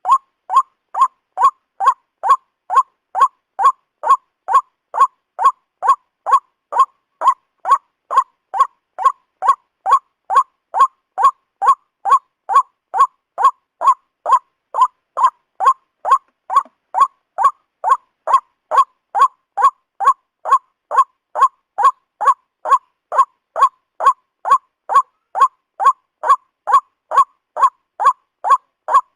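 White-breasted waterhen (ruak-ruak) calling: a short note about twice a second, evenly spaced and unbroken.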